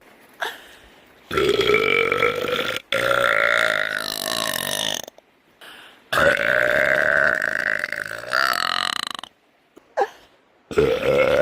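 A woman belching: four long, drawn-out burps, each lasting between one and a half and three seconds, the last still going at the end.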